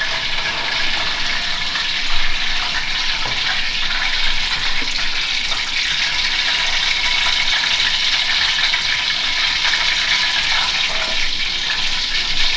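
Steady sizzling of food frying in a hot cooking pot, with a single clunk about two seconds in.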